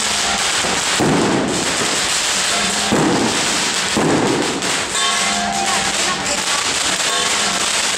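Strings of firecrackers crackling densely and continuously, with heavier bursts about one, three and four seconds in.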